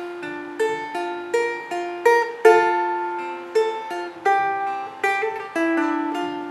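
Balalaika in traditional C–E–G tuning played fingerstyle: single notes plucked one after another in a slow broken-chord pattern, each one ringing on and fading.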